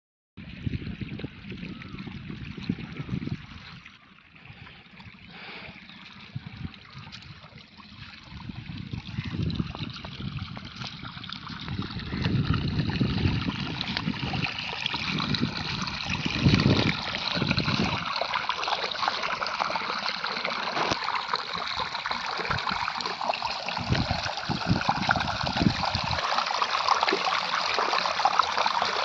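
Water trickling and running steadily, growing louder from about twelve seconds in, with low rumbling bumps on the microphone through the first half.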